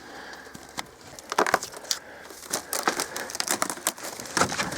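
Irregular crunching and crackling of old wood and debris, sparse at first and then more frequent, as someone moves through and handles junk.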